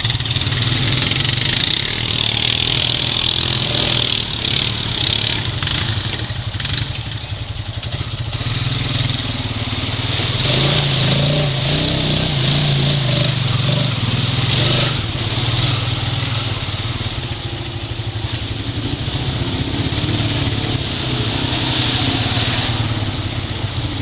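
Honda Rancher 420 ATV's single-cylinder four-stroke engine running as it rolls through shallow floodwater and mud, with water splashing and a steady hiss. The engine note rises and gets louder for a few seconds around the middle.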